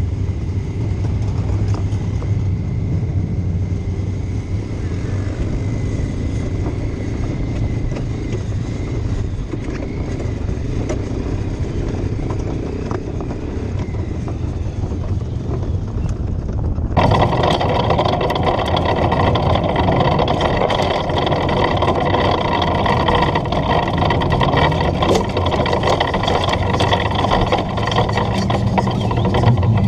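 Wingless spec sprint car engine heard from the cockpit, running steadily at low revs, then about halfway through coming up sharply to a loud full-throttle run that holds for the rest of the stretch.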